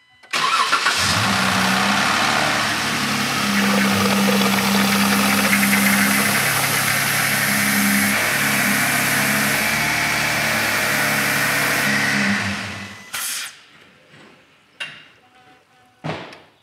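Jeep Wrangler JK engine started up and run for about twelve seconds, then switched off, while the newly filled hydraulic-assist power steering is being bled of air. A couple of short knocks follow near the end.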